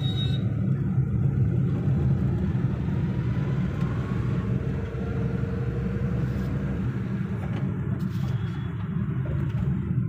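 Steady low rumble of a car driving along a road, heard from inside the cabin.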